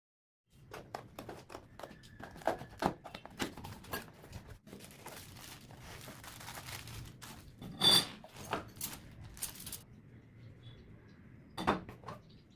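Handling of small hard tool parts: irregular clicks, knocks and metallic clinks, with a sharp loud clack about 8 seconds in and another near the end.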